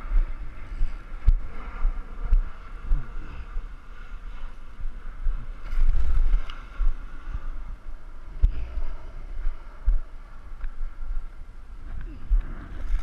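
Uneven low rumble and buffeting on a body-worn camera microphone, typical of wind and handling, with frequent dull knocks and a few light clicks.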